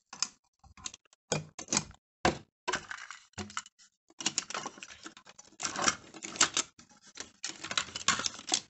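Small cardboard boxes and loose toy-train parts being rummaged and handled in a wooden storage box. A few separate sharp knocks come first, then a run of dense rattling clicks from about four seconds in.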